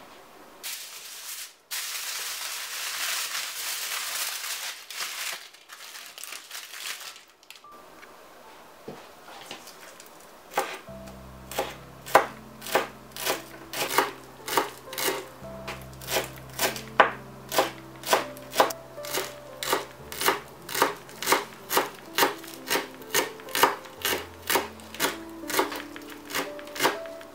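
Baking paper crinkling and rustling for several seconds. Then a kitchen knife chops fresh dill and parsley on a bamboo cutting board, in steady strokes about two a second, over background music.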